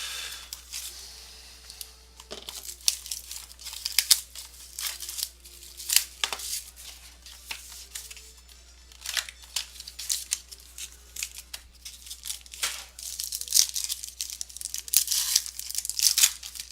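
A sealed trading-card box being opened: plastic wrapping torn off and crinkled in the hands, in a string of irregular sharp crackles and rustles.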